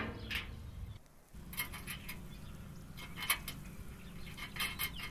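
Small metal clicks and scrapes of a bolt and nut being fitted and threaded by hand into the steel frame under a stainless steel tabletop, coming in three short clusters.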